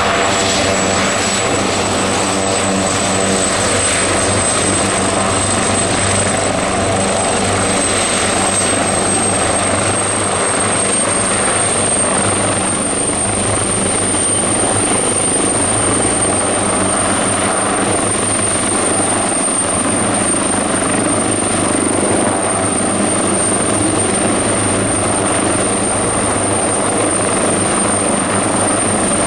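Agusta AB139 helicopter, twin turboshaft, running loud and steady on the pad and lifting off into a low hover near the end. A steady rotor thrum runs under a high turbine whine that slowly rises in pitch.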